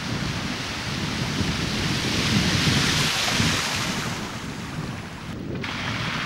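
Peugeot 205 driving through water covering the road, its tyres throwing up a rushing, hissing spray that swells as the car passes close by and then fades. Wind buffets the microphone throughout, and the sound drops out briefly near the end.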